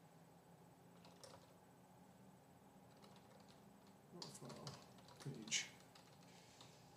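Faint computer keyboard typing in a few short spurts, about a second in and again from about four to six seconds in, against near silence.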